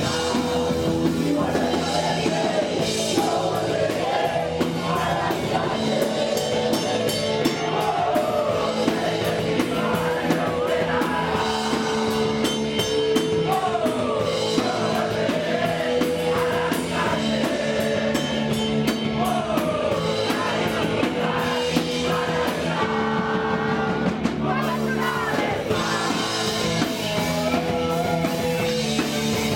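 Punk rock band playing live: electric guitar, drum kit and sung vocals.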